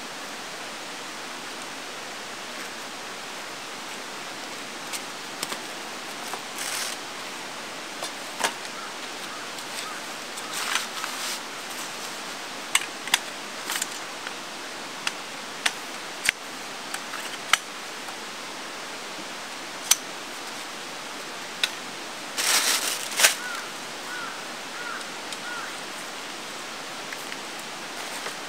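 Steady rush of running water throughout, over which scattered sharp clicks and clinks of metal tarp poles and camp gear being handled come and go, with a few short bursts of rustling.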